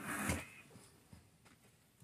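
A short thump and scuff as a deflated motorcycle tyre is pressed down by hand on a concrete floor, then faint handling noises.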